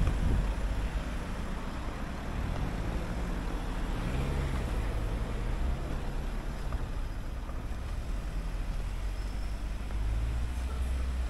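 Street traffic: a car engine running nearby over a steady low rumble.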